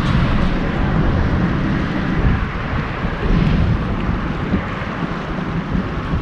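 Wind buffeting the microphone: a steady low rumble with hiss.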